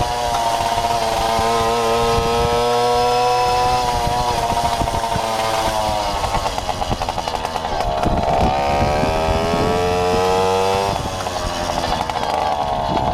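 Babetta moped's small two-stroke engine running under way, its revs holding steady, then dropping about halfway through, climbing again and falling back near the end.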